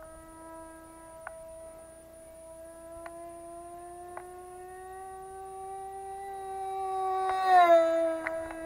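MP-JET .061 model engine on an APC 6x3 propeller, whining high on a small RC plane in flight. The pitch creeps slowly upward, then the plane makes a close low pass near the end: the whine swells loudest and its pitch drops as it goes by.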